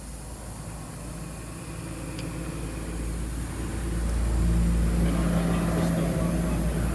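An engine running with a steady low hum that grows louder over a few seconds, then holds.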